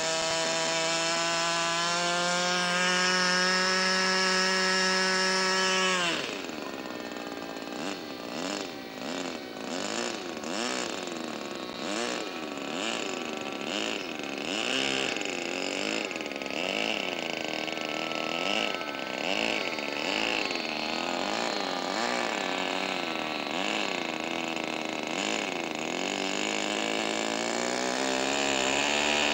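RC model airplane engine running at high, steady revs, then throttled back about six seconds in to a lower speed whose pitch wavers up and down about once a second. It is opened up again near the end as the model starts its takeoff roll.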